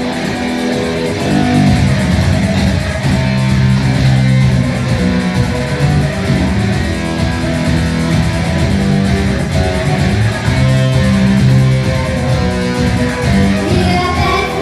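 Rock band playing an instrumental passage without vocals: strummed guitars over a bass line.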